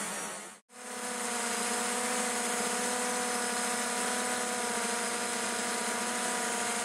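Multirotor drone's electric motors and propellers humming steadily at a constant pitch, several tones over a hiss, picked up by the camera carried on the craft. The sound cuts out briefly about half a second in, then returns unchanged.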